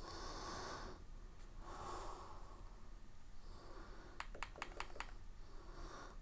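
A rapid run of five small plastic clicks about four seconds in, an Xbox controller's buttons pressed to step down through a menu, with soft breathing in between.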